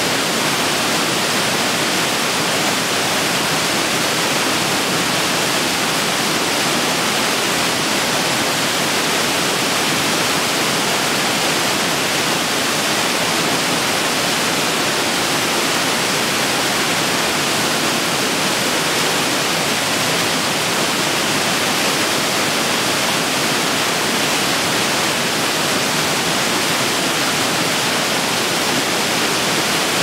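Waterfall: a steady, unbroken rush of falling water. It is bright and hissy, with little deep rumble.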